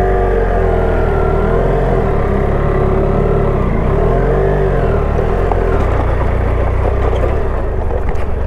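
River boat's motor running under way, its pitch wavering up and down over a steady low rumble.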